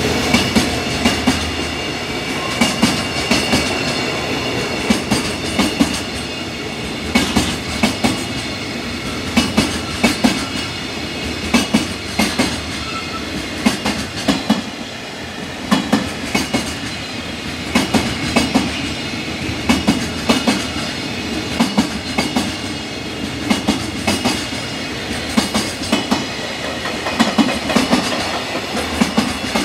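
Long container freight train passing over a rail joint: its wagon wheels clatter over the joint in a clickety-clack rhythm, a cluster of sharp clacks about every two seconds, over a steady rolling rumble.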